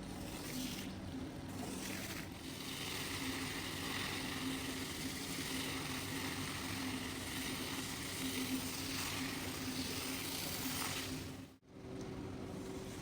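Pressure washer running, its motor or pump humming steadily under a constant hiss of water spray. Near the end the sound drops out suddenly for a moment and comes back with a higher hum.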